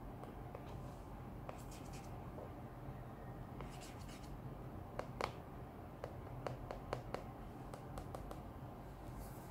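Handling noise from two smartphones, an iPhone 8 Plus and an iPhone 7 Plus: fingers rubbing and tapping on their backs give a scatter of small clicks and scrapes over a faint steady low hum.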